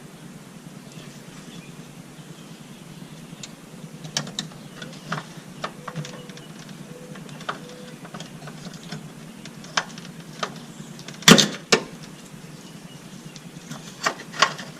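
Scattered clicks and knocks of hands and tools working at a plastic tree fastener holding the air suspension compressor, trying to pry it loose. One sharp knock stands out about two-thirds of the way through, and a few quick clicks come near the end.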